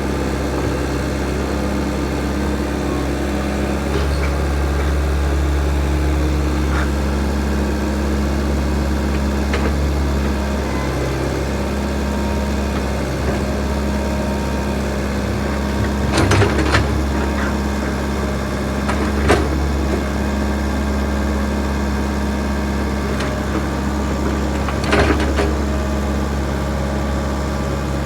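Backhoe's diesel engine running steadily, with a few short clanks or knocks from the machine, a cluster about sixteen seconds in, a single sharp one about three seconds later and another cluster near the end.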